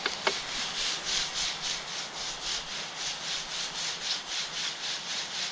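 Frying pan of sizzling fish and mushrooms being shaken back and forth off the gas burner, the food sliding and rasping in the pan about four times a second, after two sharp knocks at the very start.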